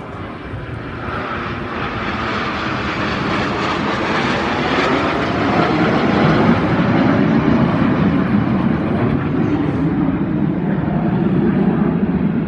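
An aircraft flying past, its engine roar growing louder over several seconds while its pitch falls.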